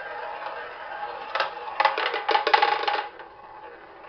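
Ball whirring around a spinning tabletop roulette wheel, then dropping and clattering across the pocket dividers for under two seconds before it settles into a pocket, about three seconds in.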